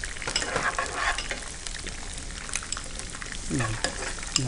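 Chopped garlic, ginger, onion and red and yellow bell peppers sizzling in hot oil in a nonstick frying pan, stirred and pushed around with a silicone spatula, with light clicks of the spatula against the pan.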